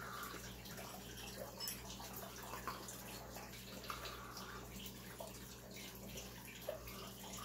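Faint steady trickle of water from an aquarium filter over a low steady hum, with a few soft clicks.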